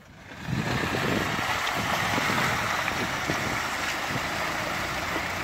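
An Isuzu Bighorn SUV wading through a flooded, muddy track: a steady rush of water splashing around its wheels over its running engine, starting about half a second in.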